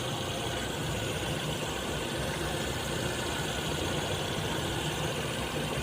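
A rescue vehicle's engine idling steadily after being jump-started.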